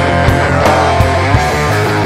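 Alternative pop band music played live by a trio on guitar, bass and percussion, with a steady beat.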